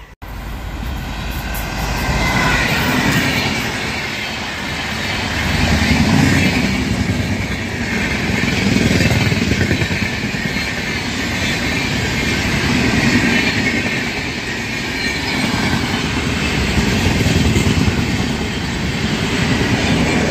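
Passenger train of red coaches running past close by at speed: a steady rumble and clatter of wheels on the rails, swelling and easing every few seconds.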